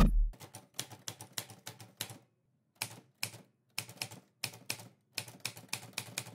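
A loud hit with a deep boom right at the start, then typewriter keys striking in quick irregular runs, several strokes a second with short pauses between runs.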